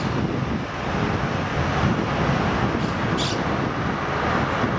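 Boeing 737-700's CFM56-7B turbofan engines running at low thrust as the airliner rolls slowly along the runway: a steady even rumble and hiss, with a short high hiss about three seconds in.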